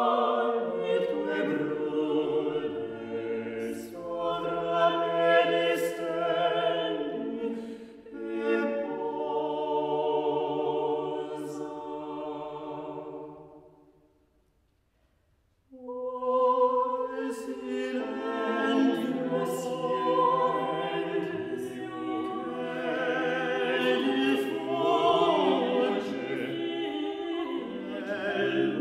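Four unaccompanied voices, two women and two men, singing a late-Renaissance Italian madrigal in parts. The singing fades out a little before halfway, stops for about a second and a half, then resumes.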